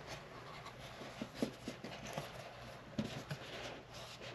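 A cardboard collectible box being opened by hand: faint rustling of the lid and packaging with a few light clicks and taps.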